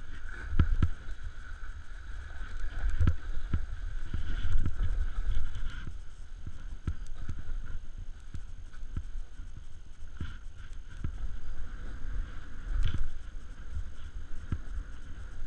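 Snowboard riding down through chopped-up powder: a rushing low rumble of the board and wind on a rider-mounted camera, with irregular knocks and scrapes as the board hits bumps in the snow.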